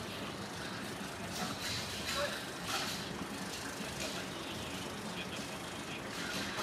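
Steady hum of a portable generator, with a few short knocks and clatters from tents being dismantled.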